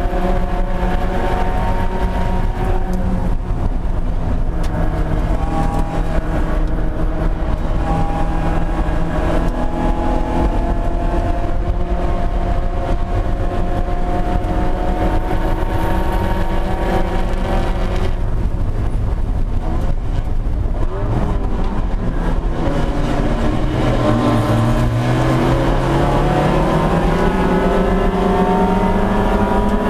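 Mazda Miata race car's four-cylinder engine heard from inside the cabin, held at high revs under power. About eighteen seconds in the revs fall away for several seconds, then climb steadily again as it accelerates.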